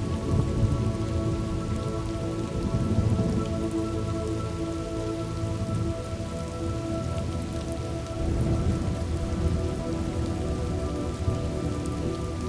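Steady rainfall with low, swelling rumbles of distant thunder, over a few soft held tones.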